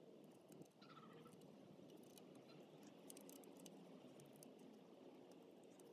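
Near silence: faint outdoor background with scattered faint ticks.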